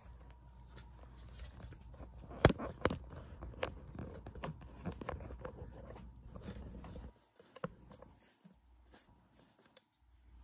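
Handling noise from a camera being set up and positioned: rubbing and scraping, with several sharp knocks about two and a half to four seconds in. It goes much quieter after about seven seconds.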